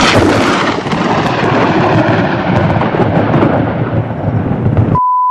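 Loud thunderclap that starts suddenly and rumbles on, slowly fading over about five seconds. Near the end a short steady beep tone cuts in over silence.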